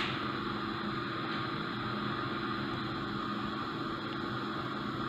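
Steady background hum with hiss and no distinct events, like a small motor or appliance running.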